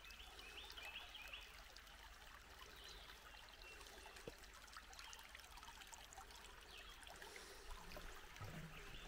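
Faint birdsong: a short series of quick repeated chirps near the start and a few more scattered later, over a soft, steady rush like a small stream.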